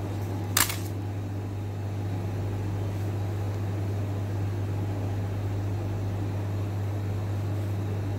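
A steady low machine hum with a constant hiss, unchanging throughout, and a single short click about half a second in.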